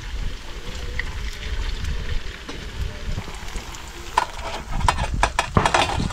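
Bakwan (snakehead-fish fritters) frying in hot oil in a wok. From about four seconds in comes a quick run of sharp metallic clinks and taps as a mesh strainer of fried fritters is knocked against an aluminium tray.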